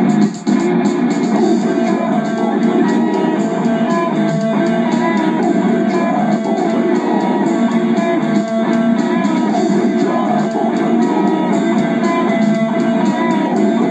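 Guitar-driven intro music playing steadily at full level.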